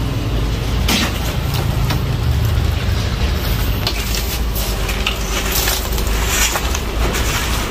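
Sand poured from a plastic bucket into a planting pot around a tree's roots, with gritty crunching and scraping. A steady low rumble runs underneath.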